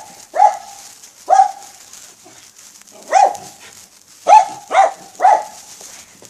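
A dog barking close by: six short, sharp barks, the last three in quick succession.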